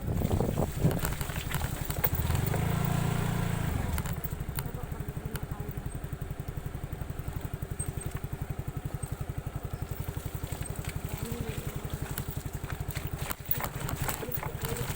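Suzuki Skydrive Crossover scooter's single-cylinder engine running while riding, louder for the first few seconds and then settling into a steady, even beat.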